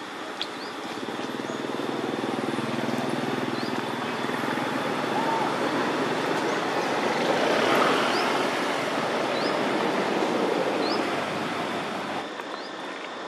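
Road traffic noise: a broad rushing that swells to its loudest about eight seconds in and drops off sharply near the end, with faint short high chirps every second or so.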